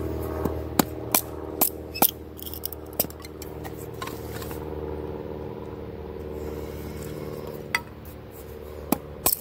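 Dewalt camper's axe blade shaving down a stick of dry wood to raise feather sticks, with a few sharp irregular ticks of steel on wood, several in the first three seconds and a couple near the end. A steady low engine drone runs underneath.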